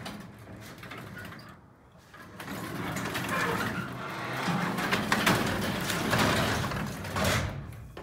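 Sectional garage door pulled down by hand, freed from its opener, its rollers rumbling and rattling along the tracks for several seconds. A louder knock comes near the end as it closes onto the floor.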